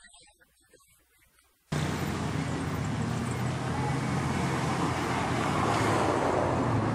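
Street traffic noise, a steady dense din of vehicle engines and road noise with a low hum, that starts abruptly about two seconds in after a few faint, quiet moments.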